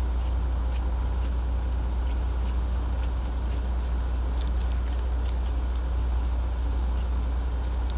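Steady low rumble of an idling truck engine heard inside the cab, with a few faint clicks.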